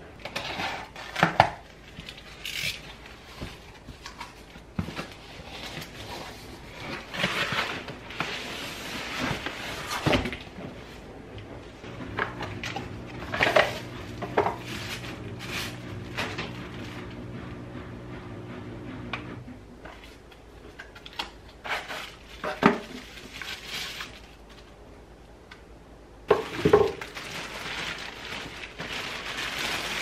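Unboxing handling noise: plastic wrapping crinkling and rustling, with knocks of packaging and items against a cardboard box and the floor. A steady low hum runs for several seconds in the middle.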